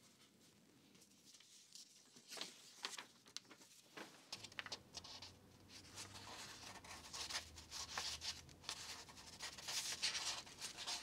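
Faint rustling and light taps of loose paper sheets being handled and gathered into signatures, starting about two seconds in. A low steady hum comes in partway through.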